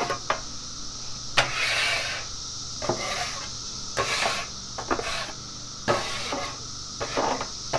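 Metal griddle scraper scraping across a hot Blackstone steel griddle top in repeated strokes, about one a second, with sharp metal clinks, pushing sugary barbecue sauce residue into the grease trap before it caramelizes. Cicadas drone steadily in the background.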